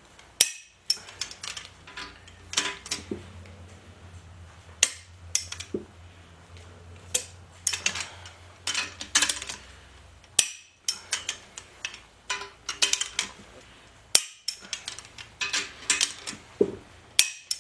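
Torque wrench ratcheting and a steel socket clinking on bolts as a steel torque plate is drawn down onto an engine block: clusters of quick sharp metallic clicks with short pauses between them. A low steady hum runs under the first half.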